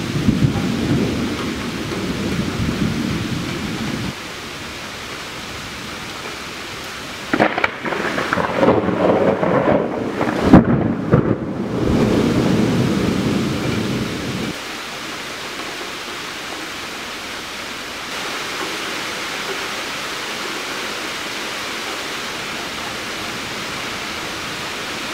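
Thunder rumbling over steady rain. A low rumble opens, a louder crackling peal comes about seven seconds in and dies away about seven seconds later, leaving the steady hiss of rain.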